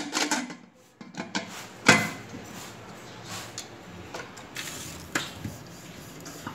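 Scattered metal clicks and knocks from handling a closed aluminium pressure cooker fitted with its whistle weight; the sharpest comes about two seconds in. Near the end comes the click of the gas stove's igniter being sparked.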